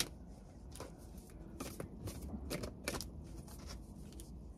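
Tarot cards being shuffled and handled: a faint string of irregular card snaps and flicks.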